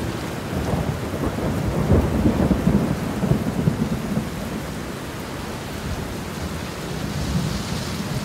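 Heavy rain falling steadily, with a rumble of thunder swelling about two seconds in and dying away by about four seconds.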